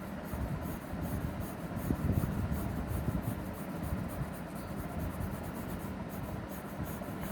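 Colour being applied to paper by hand: a continuous, uneven scratchy rubbing of the colouring stick on the paper.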